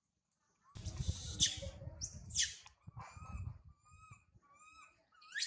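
Young macaque crying in high-pitched screams that sweep up and fall away: two loud screams about a second in, then a run of shorter, fainter cries, and another scream starting near the end. These are the distress cries of a baby left by its mother. A low rumble sits under the first few seconds.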